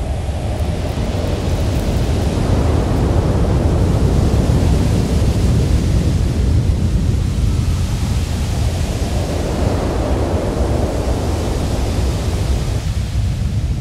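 Rocket engines on the launch pad at ignition: a loud, deep, steady rushing rumble.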